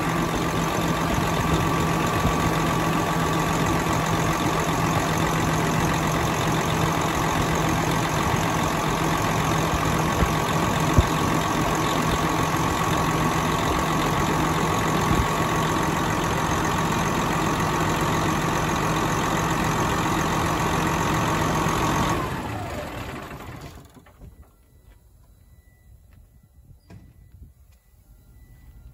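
2004 Detroit Diesel Series 60 14.0-litre inline-six turbodiesel idling steadily, with a steady whine over the engine note. About 22 seconds in it is shut off and runs down to a stop over about two seconds.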